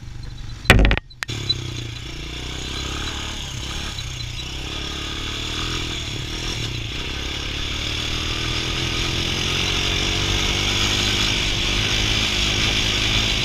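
Quad ATV engine running under way, its pitch slowly climbing as it picks up speed, with wind rushing over the microphone. A loud knock and a brief dropout about a second in.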